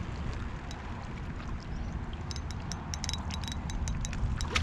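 Wind buffeting the microphone, with a quick run of light, metallic clicks and ticks through the second half.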